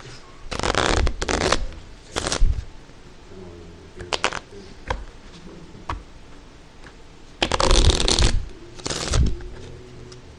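A deck of playing cards being shuffled in several short bursts: a few at the start and two more near the end, with light card clicks between them.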